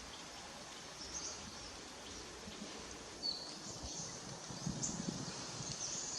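Outdoor ambience: a steady background hiss with a few short, high bird chirps scattered through it, and a brief low rustle a little before the end.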